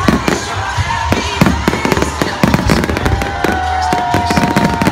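Aerial fireworks display: a dense run of shell bursts and crackling bangs, several a second, with a long held tone over the second half.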